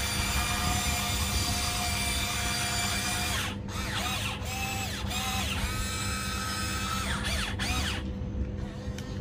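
Electric motors and gearboxes of a Huina 1594 RC excavator whining: a steady high whine at first, then from about three and a half seconds in a string of short whines that rise and fall as the boom and bucket motors start and stop.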